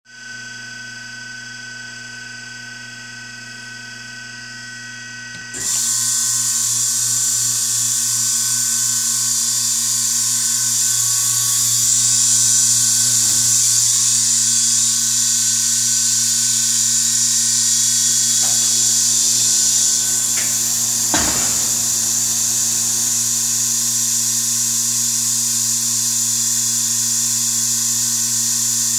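Vacuum forming machine running through its cycle: a steady motor hum with a faint whine, then about five and a half seconds in a loud, steady rush of air starts suddenly and keeps going over the hum. A single sharp clunk comes about three-quarters of the way through.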